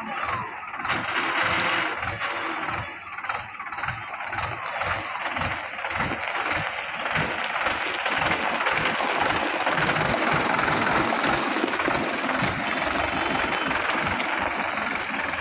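Mahindra 575 DI tractor's four-cylinder diesel engine running with a steady chug as the tractor drives past close by and pulls away.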